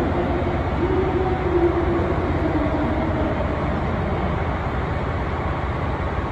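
Diesel limited express train's engines droning as it pulls away from the platform, a steady low rumble with a wavering hum over the first few seconds.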